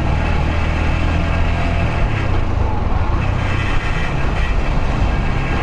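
Yamaha YBR125's single-cylinder four-stroke engine running while the motorcycle is ridden through traffic. The engine note shifts about two seconds in.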